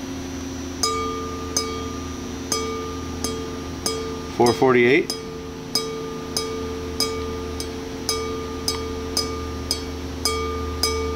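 Crystal wine glass flicked with a finger over and over, about every two-thirds of a second. Each flick rings out in a clear tone near 450 Hz, the glass's resonant frequency.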